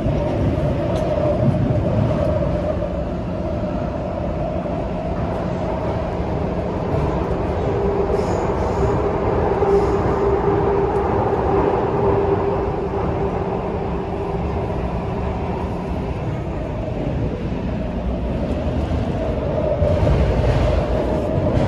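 Taipei Metro C341 metro train heard from inside the car while running: a steady rumble of wheels on rail with a steady whine, swelling louder near the end.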